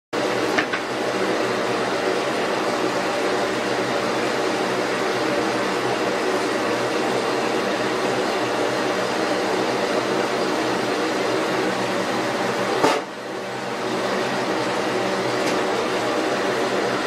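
Steady whirring hum of a small-room ventilation fan. Near the end a sharp click cuts in, and the hum dips briefly and swells back.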